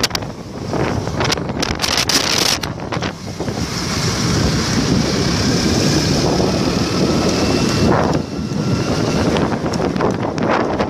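Wind buffeting the microphone on a moving motorbike, with the bike's engine and road noise underneath, rougher and gusty in the first few seconds and steadier after.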